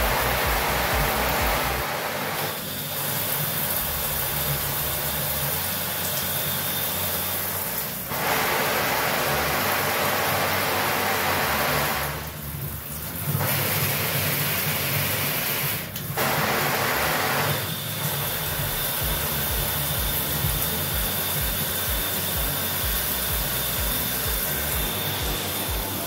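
Water spraying from a dual shower head, a fixed spray head and a handheld sprayer, hissing and splashing steadily into the tub. The sound changes abruptly several times as the spray setting is switched by hand.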